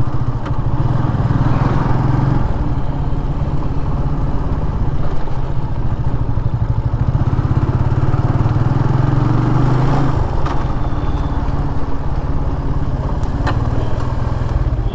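TVS Apache RTR 180 motorcycle's single-cylinder engine and stock exhaust running while riding, a steady engine note that eases off about ten seconds in.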